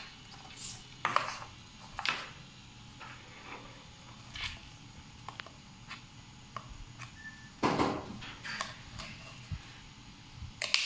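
Paper cups being handled and taken from a stack, and a hand-held hole punch squeezed through the side of a paper cup: scattered crinkles, clicks and snaps, the loudest about eight seconds in.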